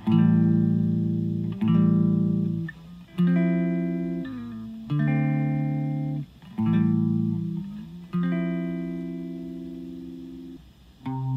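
Electric guitar strumming six slow chords, each left to ring out for about a second and a half, the last one ringing longer and fading away near the end.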